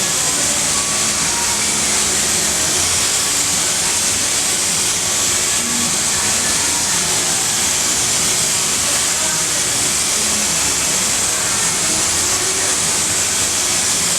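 Compressed-air tool running with a steady, unbroken hiss, the air noise high-pitched and even in level.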